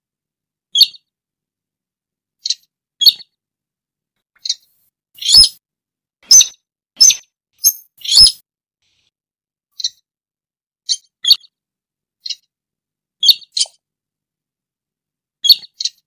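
Slaty-breasted rail giving short, sharp, high calls, about one a second, singly or in quick pairs, with the loudest calls in the middle.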